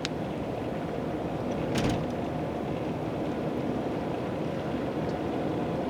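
Steady road and engine noise inside a moving car's cabin, with one short noisy burst about two seconds in.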